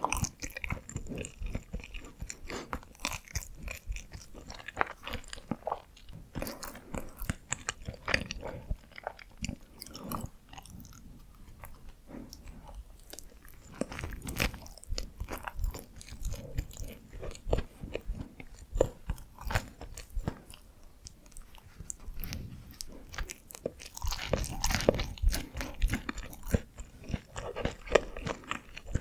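Close-miked chewing and biting of Korean steamed buns (hoppang), a run of irregular wet mouth clicks and smacks. The chewing grows denser and louder near the end.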